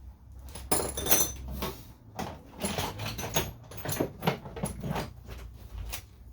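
Metal hand tools and parts clinking and clattering in a quick, irregular string of knocks with some ringing, while the car's battery is being disconnected.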